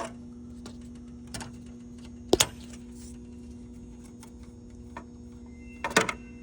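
Screw being turned out of a copier's metal cover plate with a screwdriver: faint metallic ticks, with two sharper clicks about two and a half seconds in and near the end. A steady low hum runs underneath.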